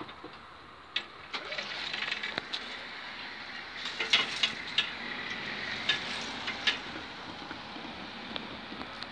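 Level-crossing barrier boom lifting, with scattered clicks and rattles, densest in the middle, over a steady hiss.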